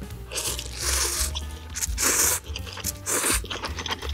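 A person slurping and chewing instant ramen noodles: about four short, loud slurps roughly a second apart. Background music runs underneath.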